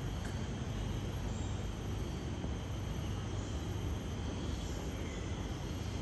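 Steady outdoor ambience: a low, even rumble with faint insect chirring above it.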